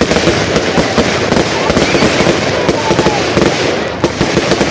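Aerial fireworks going off in a dense, rapid barrage of crackling bangs, easing slightly near the end.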